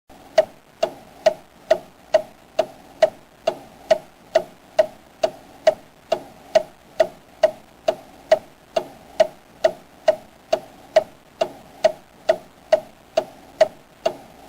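Clock ticking steadily, a little more than two ticks a second, each tick a sharp click with a brief ring.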